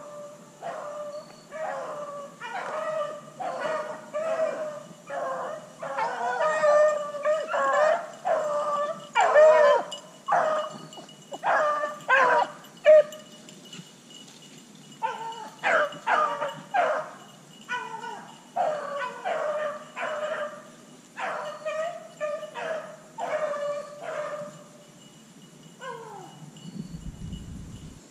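Hunting beagles baying: a long run of repeated howling calls, about two a second, with a brief lull about halfway. The sign that the pack is running a rabbit.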